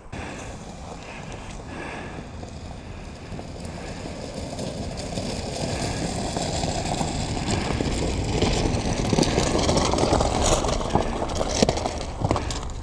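A car driving slowly up a gravel road, its tyres crunching on the stones and the sound growing louder as it nears. Scattered crunching steps on gravel come in the later part.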